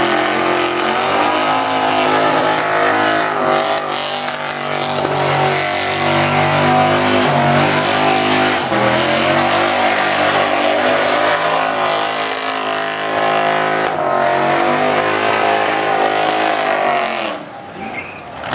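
Holden Commodore's engine held at high revs through a burnout, the revs wavering up and down over a rasping tyre-spinning noise. Near the end the revs fall away sharply for a moment, then pick up again.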